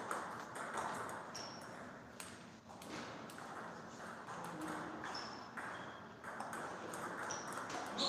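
Table tennis ball clicking sharply off the rubber-faced bats and the tabletop as it is hit back and forth, with a murmur of voices in the hall behind.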